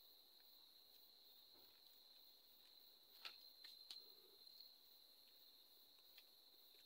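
Near silence: a faint steady high-pitched whine throughout, with a few soft clicks a little past the middle.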